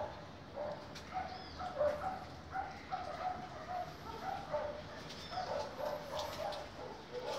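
Young puppies whimpering and yipping in short, quick squeaks, over and over.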